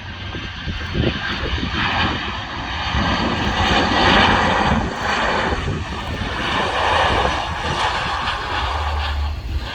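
Airbus A319 airliner's jet engines rushing and whining as it arrives, swelling loudest about four seconds in, rising again around seven seconds, then easing.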